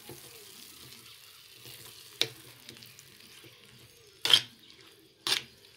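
A spoon stirring a thick coconut-and-curd paste into cooked cucumber in a pan, warming it without boiling. Three sharp clacks of the spoon against the pan stand out, the loudest a little past four seconds in, over a faint steady hiss from the heating mixture.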